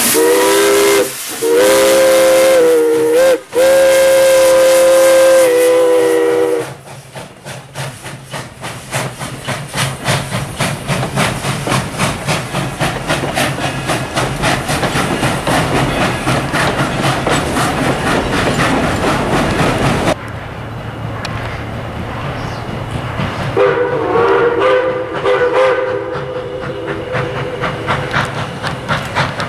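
Steam locomotive whistle blowing in long blasts broken twice, then the locomotive's exhaust chuffing in a steady rhythm as it pulls its passenger train. Later the whistle sounds again in one long blast over the chuffing.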